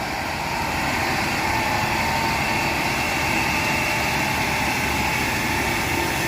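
Asphalt paver engine running steadily, with no change in speed.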